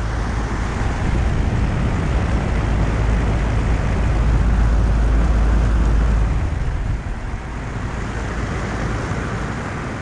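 2015 Lennox T-Class 5-ton central air conditioner condenser running in cool mode: a steady whoosh of its fan with a heavy low rumble of the outlet air on the microphone near the top grille. The rumble eases off about seven seconds in.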